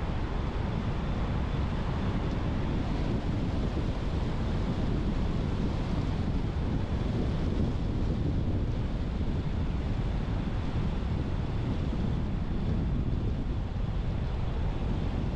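Steady road and wind noise of a car driving at an even pace: a constant low rumble with a hiss above it.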